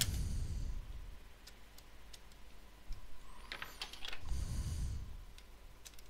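Small screwdriver turning the CPU heatsink screws in a Lenovo ThinkPad T61, giving light clicks and ticks. Two soft rubbing noises come at the start and about four seconds in.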